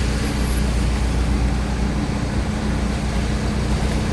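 Steady engine hum and road noise heard from inside a moving vehicle.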